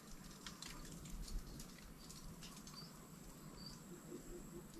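Faint outdoor background with no speech: scattered small clicks and ticks, a thin steady high-pitched insect tone, and a couple of short bird chirps. A run of soft low pulses begins near the end.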